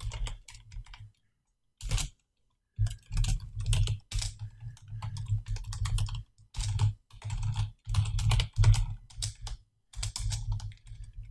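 Typing on a computer keyboard: irregular runs of quick keystroke clicks broken by short pauses.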